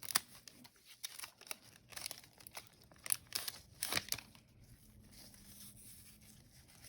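A trading card pack's wrapper being torn open and crinkled by hand, a run of sharp crackles that thins out and grows fainter after about four seconds.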